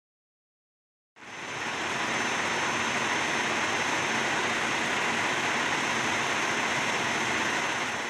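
Dyson V12 Detect Slim cordless vacuum running: a steady rush of air with a thin high whine, coming in quickly about a second in.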